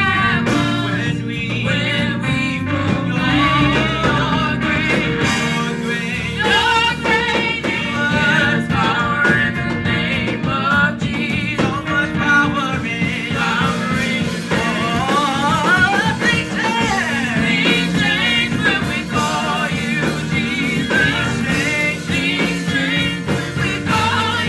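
Gospel worship song: voices singing over a band with a steady beat.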